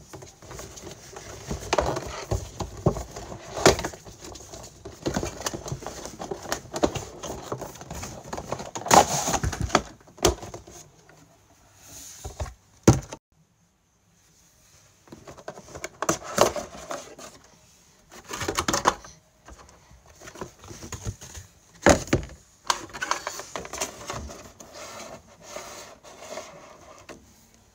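Cardboard packaging and a clear plastic blister tray being handled and opened, giving irregular rustling, crinkling and clicking with a few louder crackles and a short quiet gap about halfway.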